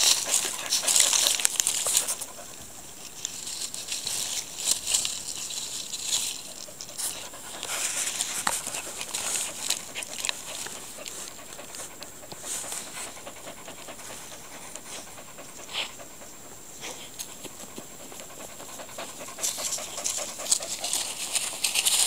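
Standard schnauzer puppy digging in grassy soil, its paws scraping at the dirt in irregular bursts, with a dog panting. The scraping is loudest in the first two seconds and again near the end.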